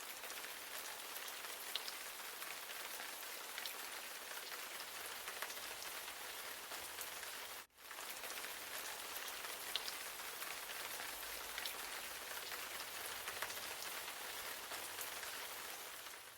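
Steady rain falling, an even hiss with scattered drops ticking. It cuts out for an instant about halfway through and fades away at the end.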